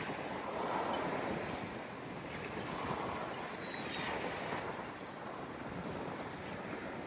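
Sea waves washing in, rising and falling, with wind buffeting the microphone.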